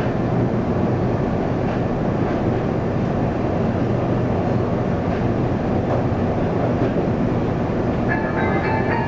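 Running sound inside a Taiwan Railways local electric train under way: a steady rumble with a low hum and a few faint ticks. About a second before the end, an electronic chime tune starts, the kind that comes ahead of an onboard announcement.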